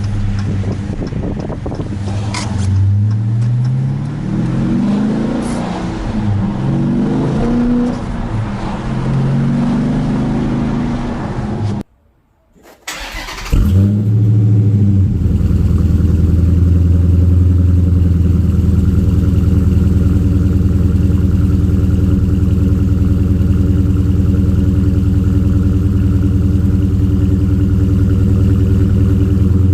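Dodge Challenger R/T Scat Pack's 392 Hemi V8 through its active exhaust, revving with the pitch rising and falling several times. It cuts off abruptly about twelve seconds in, then comes back as a steady, deep idle.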